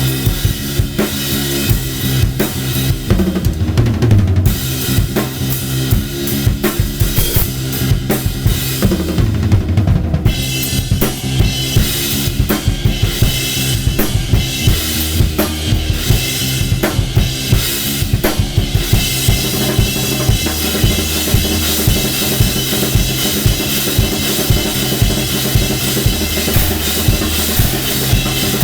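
Drum kit improvisation with bass drum, snare and cymbals keeping a steady beat, played over sampled audio that holds low sustained notes.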